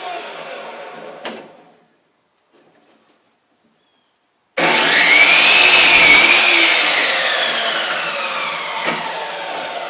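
Electric power saw cutting wood. At the start a run dies away into silence; about four and a half seconds in the saw starts abruptly with a loud whine that rises through the cut and then slowly winds down.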